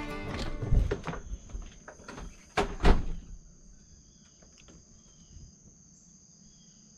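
A door handle clicking and a door opening and knocking shut, with the loudest knocks about three seconds in. Then a steady high drone of insects.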